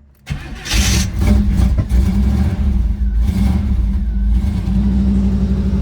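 Cold start of a Trans Am's V8: the starter cranks briefly and the engine catches under a second in with a loud burst, revs, then settles into a steady idle. The engine has a tapping tick, which is commonly a worn exhaust manifold gasket.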